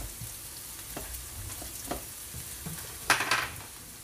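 Diced onions and tomatoes sizzling in oil in a nonstick frying pan. A spatula stirs them, scraping across the pan a few times, loudest about three seconds in, then the stirring stops and only the sizzle goes on. This is the sauté of the aromatics for a shrimp-paste sauce.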